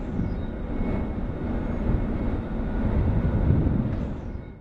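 Steady low industrial rumble from a steelworks, with a faint steady high tone running over it; it fades out near the end.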